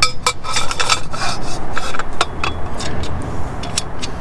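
Steel trimmer-rack tubing scraping, rubbing and clicking as a square adapter bar is slid into its bracket, with a brief metallic ring in the first second.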